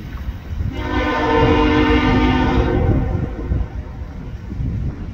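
Diesel locomotive horn sounding one chord blast of about two seconds, starting about a second in, over the low rumble of a moving train.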